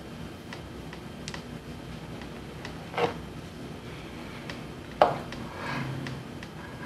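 Mahjong tiles clicking as they are set down and moved on the table: a few scattered clacks, the sharpest about five seconds in.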